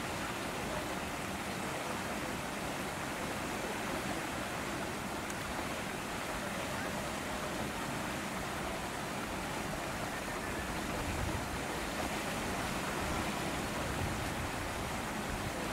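Steady, even rushing outdoor background noise with no distinct events.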